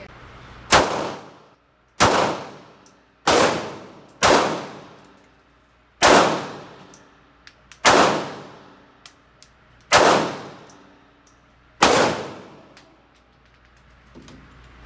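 Eight handgun shots fired one at a time, roughly one to two seconds apart, each a sharp crack followed by a short ringing echo.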